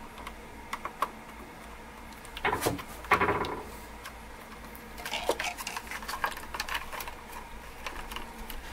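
Small clicks, taps and rubbing of power-cord wires and the cord's jacket against a plastic cable gland and switch box as the leads are pushed through. Two louder scrapes come about two and a half and three seconds in.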